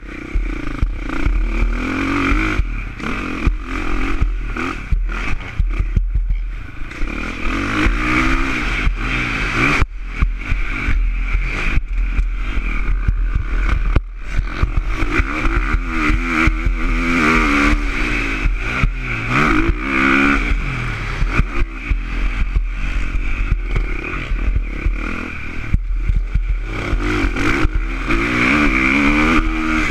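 KTM 450 SX-F motocross bike's single-cylinder four-stroke engine being ridden hard, revving up and dropping back again and again as the rider works the throttle and gears. There are a couple of brief sudden dips in the engine sound, about ten and fourteen seconds in.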